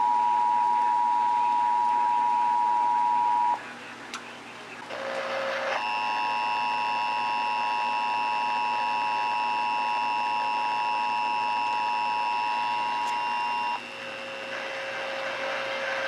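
Emergency Alert System attention signal: a steady two-tone alert tone that stops about three and a half seconds in. After a short gap and a brief burst of noise, a second, harsher alert tone with several pitches sounds for about eight seconds, then gives way to a lower steady tone and hiss.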